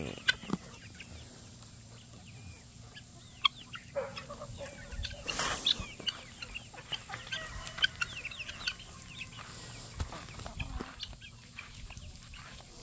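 A flock of free-ranging chickens clucking and calling, with many short high chirps throughout and a brief rustle about halfway through.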